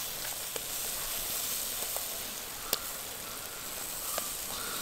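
Red chili masala with curry leaves sizzling steadily in hot oil in a clay cooking pot, with a few sharp pops.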